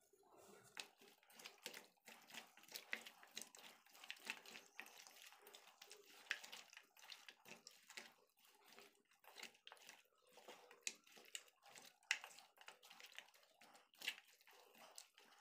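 Faint, irregular wet squelching and clicking of a hand kneading raw chicken pieces in a wet marinade in a stainless steel bowl.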